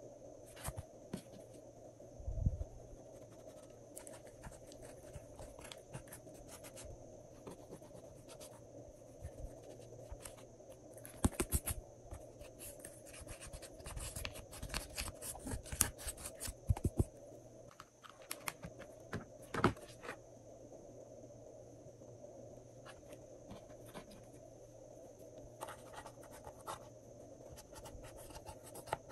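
Slime being squeezed and worked by hand, giving irregular sticky clicks and crackles that come thickest in the middle, over a faint steady hum.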